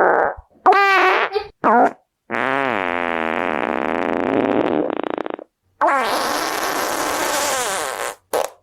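A string of separate fart sounds, one after another. Two short ones come first, then a long wavering one of about three seconds and a long, hissier one of over two seconds, and a brief one near the end.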